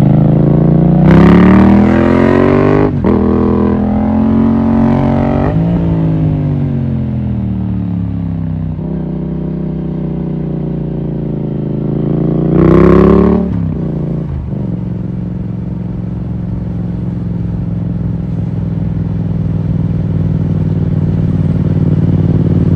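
Yamaha MT-07's parallel-twin engine heard on the move: it accelerates with rising revs, drops suddenly at a gear change about three seconds in, climbs again, then eases off and runs steadily at low revs. About halfway through there is a short, sharp rise in revs before it settles again.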